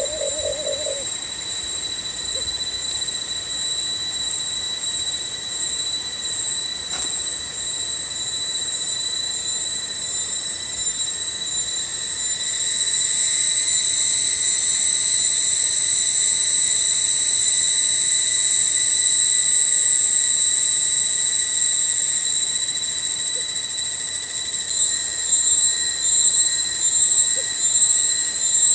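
Cicadas singing: a loud, steady, high-pitched drone that swells about twelve seconds in and eases after twenty seconds, with a pulsing trill at the top near the start and end. A dove's low, pulsed coo ends within the first second.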